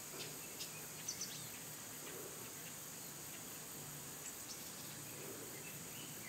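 Steady high-pitched insect drone from the pond-side vegetation, with a few short chirps about a second in.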